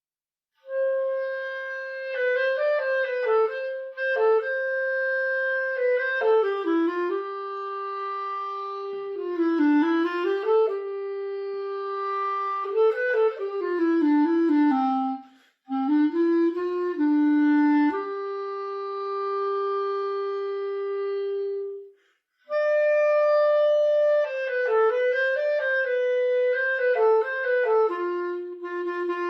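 A solo melodic instrument playing a tune one note at a time, with two brief breaks.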